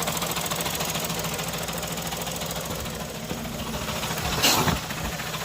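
Car engine idling with a fast, steady knocking from the bottom end after the clutch pedal is released quickly: the sign of axial play in the crankshaft, which the mechanic diagnoses. A brief, louder noise cuts in about four and a half seconds in.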